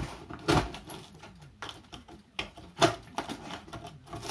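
Cardboard box and packaging being rummaged through by hand: irregular rustling and scraping with a few sharp knocks, the loudest about half a second in and just under three seconds in.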